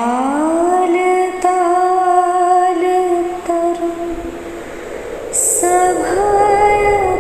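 Slow background music: a woman's voice sings long, held notes, sliding up into the first one.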